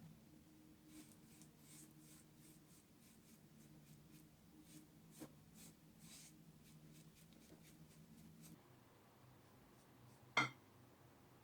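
Faint, repeated short strokes, like brushing or rubbing by hand on the wooden tray, over a low steady hum that stops partway through. A single sharp knock comes near the end.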